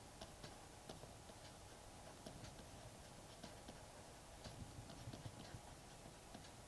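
Near silence with faint, scattered light ticks of a stylus tapping on a pen tablet while handwriting.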